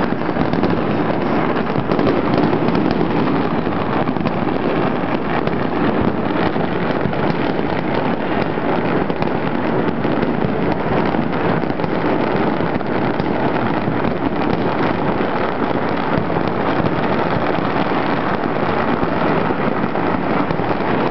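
Countless firecrackers and fireworks going off at once all over a city, merging into a dense, unbroken crackle that keeps a steady level with no pauses.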